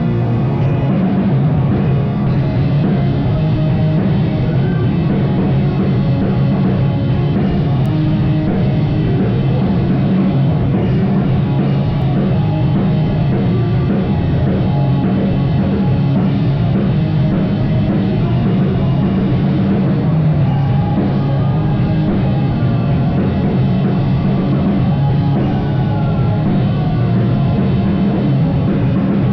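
A rock band playing live: loud distorted guitars over a drum kit, an instrumental stretch without singing.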